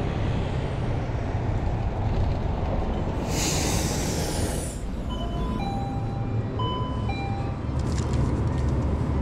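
City street traffic with a steady low rumble as a city bus passes, and a loud hiss of air from its air brakes for about a second and a half near the middle. After that, a simple tune of clear beeping notes at a few different pitches.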